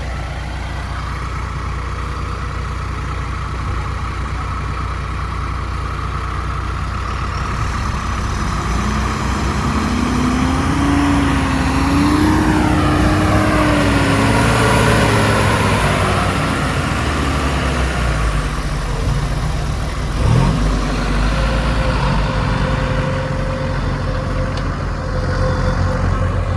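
A heavy diesel engine running steadily. Midway a second motor vehicle passes, its engine note rising to a peak and then falling away.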